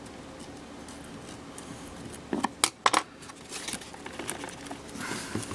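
A few light, sharp clicks and taps about two and a half to three seconds in, from small parts being handled and set down on a workbench, over low room hiss.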